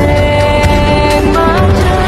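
Music: a sustained melody line stepping between notes over a steady, pulsing low beat.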